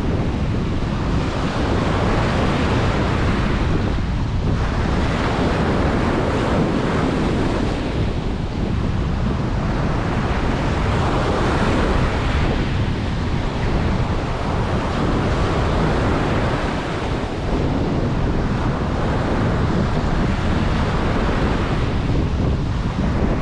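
Ocean waves breaking and washing on a beach, a continuous surf noise that swells and eases every few seconds, with wind buffeting the microphone and adding a low rumble.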